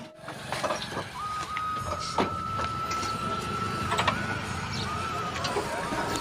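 Steady traffic and vehicle noise with a few sharp metallic clicks of hand tools on the truck's engine parts. A thin, steady high whine holds through much of it.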